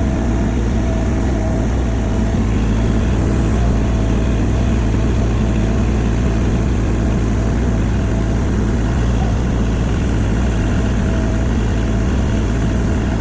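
Mini excavator engine running steadily at constant speed.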